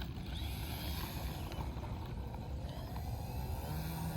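Wind buffeting the microphone, with the faint wavering drone of a model airplane's motor.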